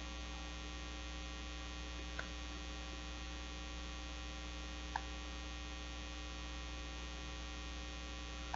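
Steady electrical mains hum, even and unchanging, with two faint short clicks about two and five seconds in.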